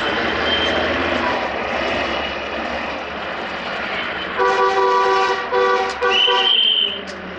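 Road traffic at a level crossing, a heavy truck's engine running as it crosses, then a loud multi-tone horn sounds three times in quick succession about four and a half seconds in.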